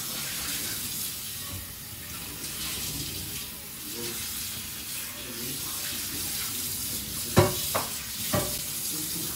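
Steady hiss of running water, as from a kitchen tap, with three sharp knocks near the end.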